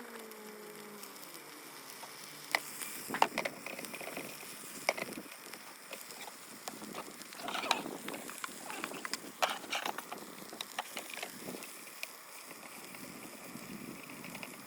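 Irregular clicks and light knocks, clustered in the middle, over a faint steady hiss.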